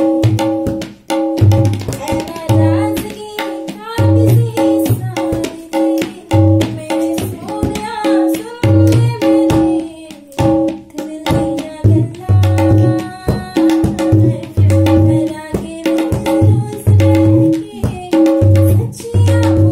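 Tabla played in a steady rhythm: deep bass strokes on the bayan about once a second under quick ringing strokes on the dayan, accompanying a woman singing.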